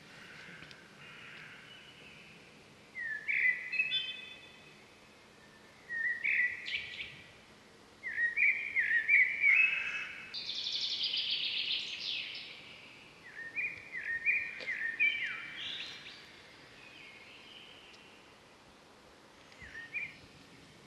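Birdsong: short phrases of chirping notes that step up and down in pitch, coming every few seconds, with a harsher buzzy stretch about halfway through, over a faint steady outdoor background.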